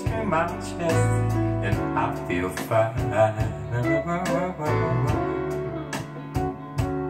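Soul ballad playing back over a pair of hi-fi loudspeakers, with guitar to the fore.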